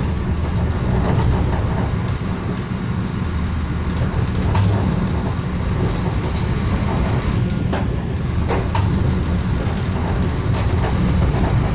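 Moving passenger train heard from inside the carriage: a steady low rumble of wheels on rails, with a few short sharp clicks now and then.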